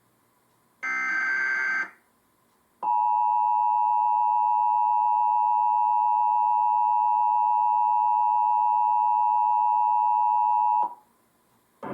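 Emergency Alert System tones: about a second in, a short screech of digital header data, then after a second's pause the two-tone EAS attention signal, held steady for about eight seconds before it cuts off. Together they open a National Periodic Test of the Emergency Alert System.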